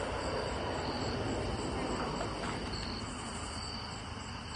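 Night insects, crickets, chirping: short high chirps repeating steadily, over a steady low rustling noise.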